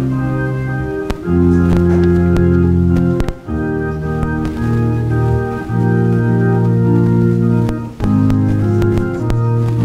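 Organ playing a slow prelude in sustained chords, each chord held steady for one to two seconds before the next, with a brief break between phrases twice.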